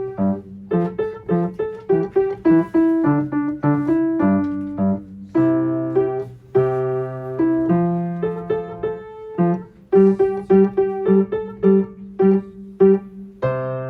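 Piano playing a lively tune in short detached notes, a melody over a simple single-note bass line, ending on a held chord near the end.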